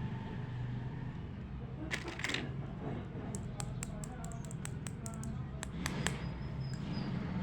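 Small plastic toy pieces being handled: a quick run of light clicks and taps, denser between about three and six seconds in, over a steady low hum.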